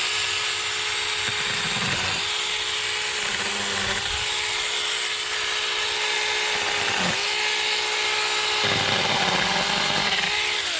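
Saker mini cordless electric chainsaw (a 4-inch battery saw) running at full speed with a steady high whine that starts suddenly. The pitch sags briefly several times as the chain bites into wood under load.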